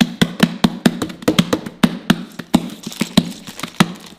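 Freshly made fluffy slime being kneaded by hand, giving sharp clicks and pops several times a second at uneven spacing as air pockets in it burst.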